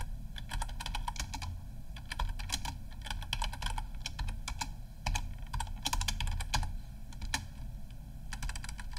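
Typing on a computer keyboard: irregular runs of key clicks with short pauses between them, over a low steady hum.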